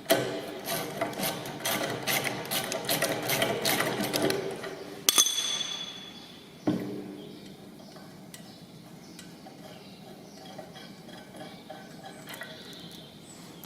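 Rapid metallic clicking of a spanner working a bolt loose, followed by two sharp metal clanks about five and six and a half seconds in, then fainter intermittent ticking.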